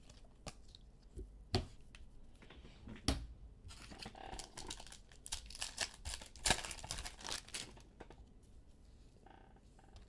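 Foil wrapper of a trading card pack crinkling and tearing as it is opened, between light clicks and slides of cards being handled. The rustling is busiest about four seconds in and again around six to seven seconds in.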